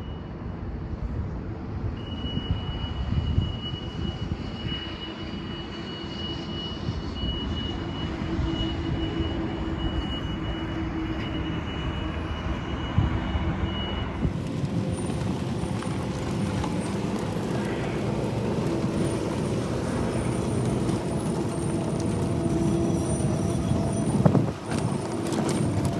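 Heavy machinery engine running steadily, with a high, steady tone over the first half.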